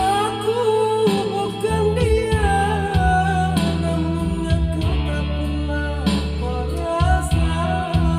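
An amateur singer's voice singing a melody with vibrato over a backing track of steady chords and guitar, with a short break in the singing mid-way. The voice is hoarse from a cough, which the singer gives as the reason it is not perfect.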